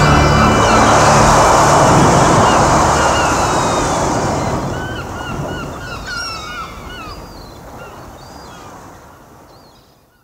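Surf washing onto a sandy beach, with gulls crying in short calls from a few seconds in; everything fades out gradually to silence by the end. The last tones of the music die away in the first second.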